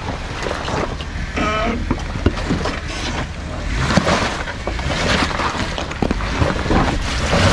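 Jeep Wrangler Rubicon JKU crawling over a rock obstacle: the engine running under load with a steady rumble, and tyres grinding and crunching over loose rock and gravel with scattered knocks.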